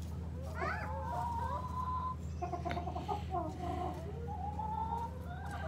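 A flock of backyard hens clucking, with several long drawn-out calls one after another.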